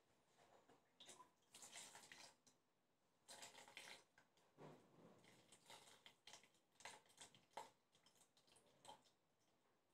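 Melted chocolate being poured into a silicone mould: faint, irregular wet splats and drips as the thick stream lands in the cavities.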